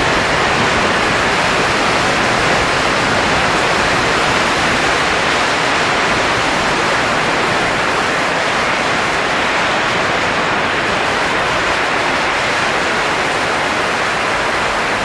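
A steady rushing hiss of blowing air, even and unbroken, with no gusts or pauses.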